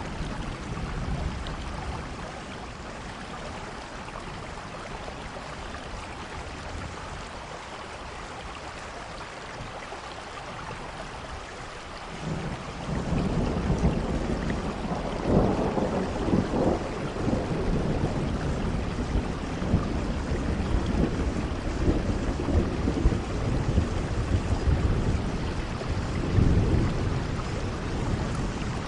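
Steady rain falling with rolling thunder: a rumble builds about twelve seconds in and swells twice, strongest around fifteen seconds and again near the end.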